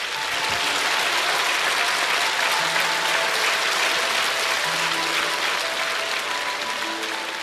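Studio audience applauding steadily over a light music cue of held notes, the applause easing slightly near the end.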